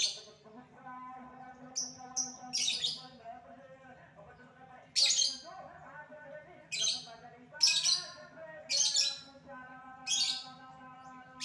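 Caged lovebird giving short, shrill chirps, about eight of them, some in quick pairs a fraction of a second apart.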